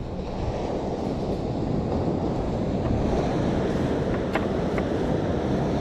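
Surf washing in, growing slowly louder, with wind rumbling on the microphone. Two faint clicks come about four and a half seconds in.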